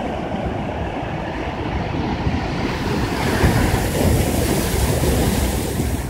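Heavy ocean surf breaking and crashing against shoreline rocks, a dense, loud rushing rumble with wind buffeting the microphone. About three seconds in, a hiss of churning whitewater swells up and holds.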